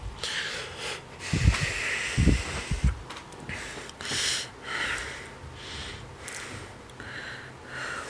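Breathing and handling noise close to the microphone, with hissy breaths coming and going about once a second and a few dull bumps between about one and a half and three seconds in.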